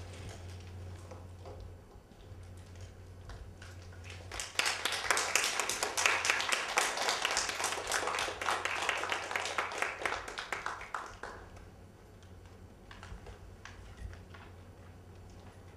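A small audience clapping. The applause starts abruptly about four seconds in, lasts some six seconds and thins out.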